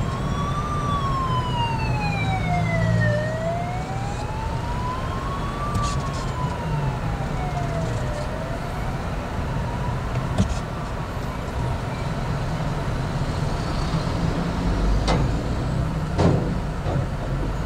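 A siren wails slowly up and down, one rise and fall about every five seconds, fading out after about ten seconds, over the steady low rumble of engines in heavy traffic. A few sharp clicks come near the end.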